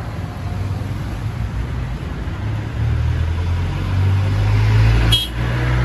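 Street traffic with a motor vehicle's engine running close by, a low steady hum that grows louder in the second half, with a brief click about five seconds in.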